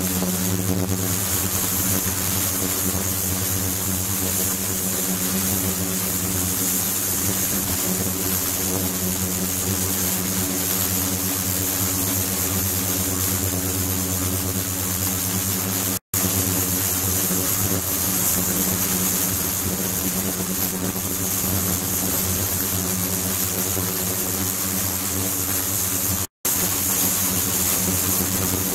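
Steady machine hum made of several low tones over a constant hiss, from the circulation pump running and water flowing through the ultrasonic shower setup. It breaks off for an instant twice.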